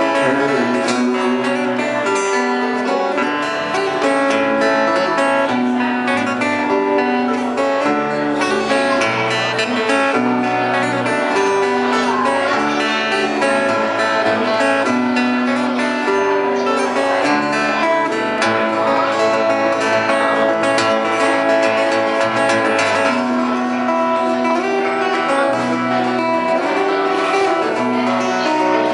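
Acoustic guitar and electric bass guitar playing a song live together.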